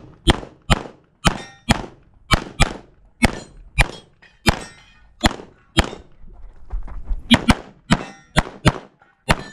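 Rapid 9mm pistol fire from a Walther PDP Steel Frame: about twenty shots, mostly in quick pairs about a third of a second apart, with a pause of about a second and a half around six to seven seconds in. Some shots are followed by a brief metallic ring.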